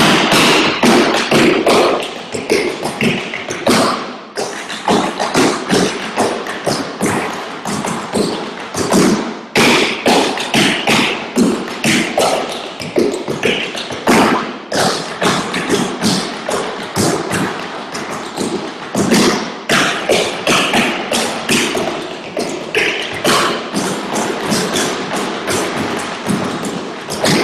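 Tap shoes of several dancers striking wooden tap boards, a dense, quick run of taps throughout.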